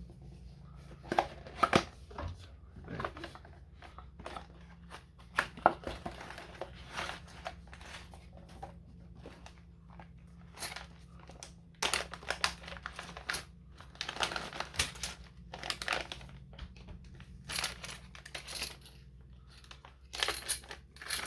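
Plastic packaging crinkling and tearing as it is handled and opened by hand: irregular scratchy rustles with sharp clicks here and there, loudest near the end.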